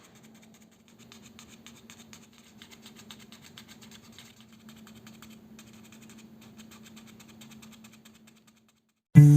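A paper origami button fidget toy being pressed over and over: a long run of soft, quick paper clicks, over a faint steady hum.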